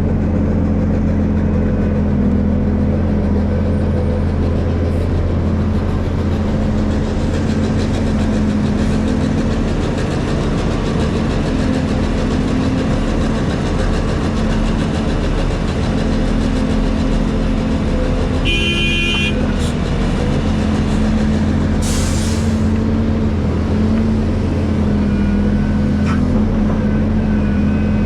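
Hydraulic excavator's diesel engine running steadily while working. About two-thirds of the way in there is a short high-pitched tone, and a brief sharp hiss follows a few seconds later.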